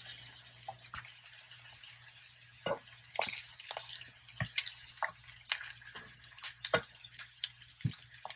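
Pineapple wedges sizzling in hot olive oil in a frying pan, with scattered sharp pops and clicks as metal tongs turn them and lift them out.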